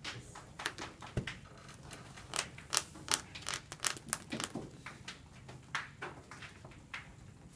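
Sleeved trading cards being handled and put down on rubber playmats: irregular light clicks, taps and slaps, a few louder ones around the middle.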